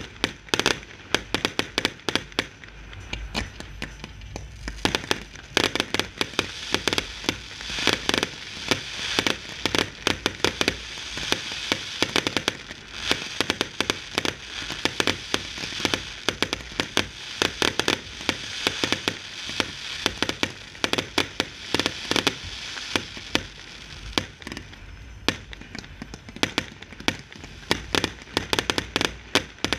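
Fireworks display: rapid, near-continuous bangs of aerial shells and comets bursting, with a steady hiss and crackle between them that thickens through the middle and a low rumble a few seconds in.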